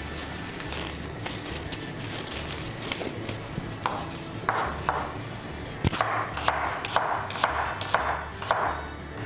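A cook's disposable plastic gloves and hands working at a kitchen counter: short scratchy rustles that come in a run of several about halfway through, with one sharp click near the middle.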